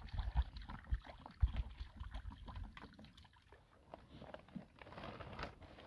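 Water poured from a plastic jerrycan into a metal frying pan, a thin stream splashing into the pan, with low rumbling thumps over the first few seconds.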